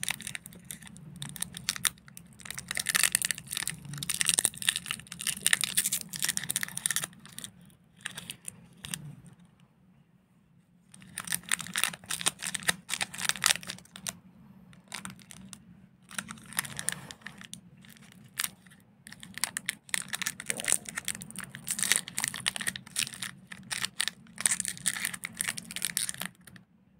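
Plastic candy wrappers and packets crinkling and rustling as they are handled and torn, in a series of crackly bursts with a quieter spell about a third of the way in.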